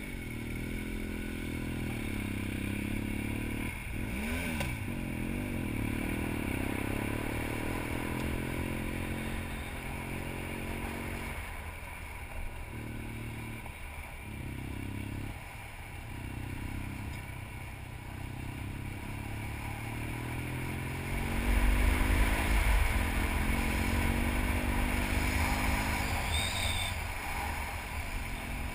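Twin-cylinder adventure motorcycle being ridden up a gravel mountain road, heard from on the bike. The engine note rises and dips as the throttle opens and closes, with gravel crackling under the tyres. From about two-thirds of the way in, a louder low rumble comes in.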